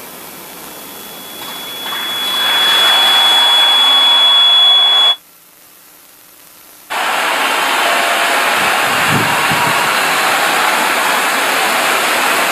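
Congregation applauding, building up about two seconds in, with a steady high whistle over it for the first few seconds. The applause drops out sharply for nearly two seconds in the middle, then comes back loud and steady.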